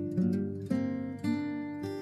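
Background music: an acoustic guitar playing a tune of plucked notes and chords.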